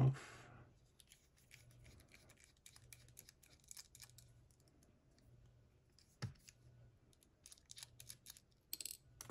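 Small metal tools clicking and scraping against a lock cylinder as a part at its back is worked loose, with a sharper click about six seconds in and a quick run of clicks at the end.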